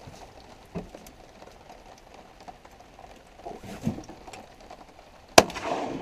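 A single shotgun shot from a Stoeger 2000 semi-automatic 12-gauge about five seconds in, sharp and loud with a short echo after it. Before it only a few faint knocks.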